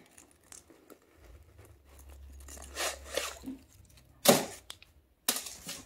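Crumpled packing tissue paper crinkling and rustling as it is pulled out of the inside of a new knit sneaker, with two short louder crackles near the end.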